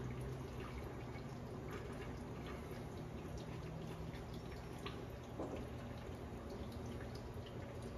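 Liquid dripping in faint scattered ticks over a steady low hum.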